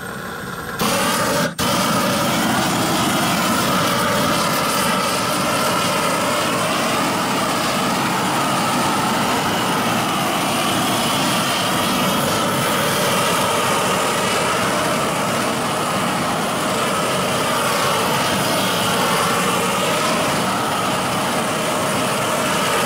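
GrillBlazer GrillGun, a 400,000 BTU handheld propane torch, running with a steady roar as it burns off a grill's cooking grate. It opens up from a lower flame to full blast about a second in, then holds steady.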